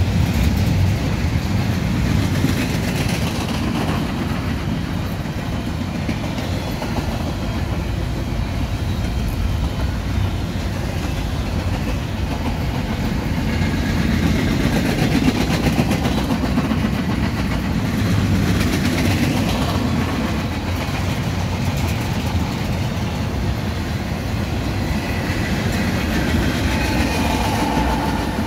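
A freight train of empty intermodal well cars rolling past: steel wheels running steadily on the rails, with faint high squeals near the end.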